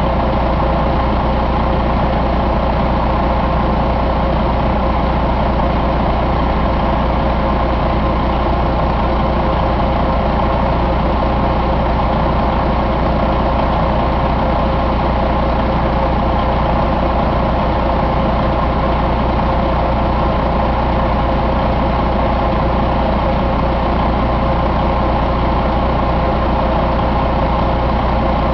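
Detroit Diesel Series 60 12.7-litre inline-six turbo diesel running steadily at idle on a test stand, its speed unchanging throughout.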